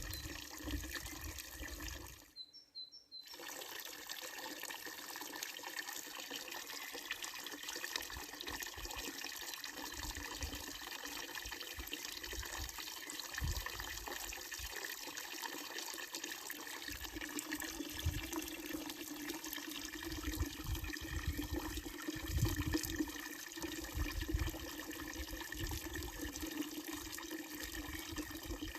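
Water running steadily from a wooden trough spout of a village fountain and splashing into the basin. The sound briefly drops out about two and a half seconds in, then carries on.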